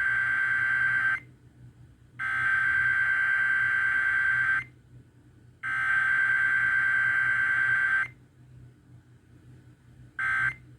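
Emergency Alert System SAME digital header: harsh, screechy data tones in bursts about two and a half seconds long with a second's gap between them, the end of one and then two more. Near the end a short half-second burst begins the end-of-message code. Header straight into end-of-message, with no attention tone, is the pattern of a Required Weekly Test.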